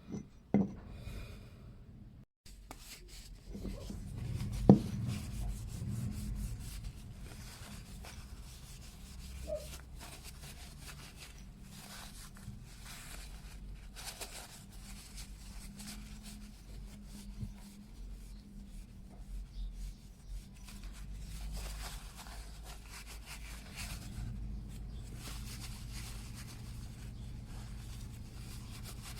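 Hands handling a yoyo during a bearing and string change: continuous rubbing and scraping, with a few sharp clicks, the loudest about five seconds in.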